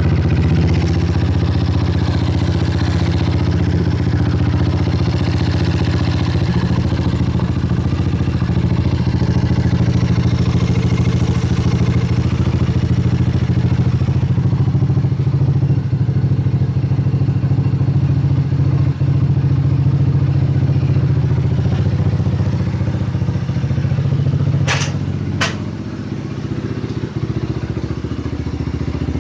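Dirt bike engine running steadily through its freshly packed muffler. It gets a little quieter near the end, with two sharp clicks close together.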